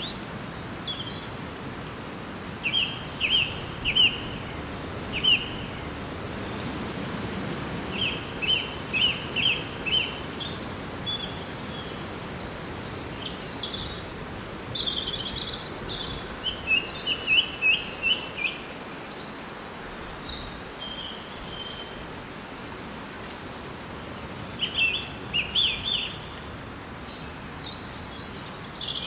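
Daytime forest ambience: songbirds singing in short bursts of quick repeated chirps over a steady background hiss of leaves and air.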